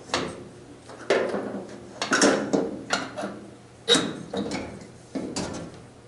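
Sheet-metal parts of a gas fireplace clanking and rattling in about ten irregular knocks as a trim panel is handled and fitted, one knock ringing briefly about four seconds in.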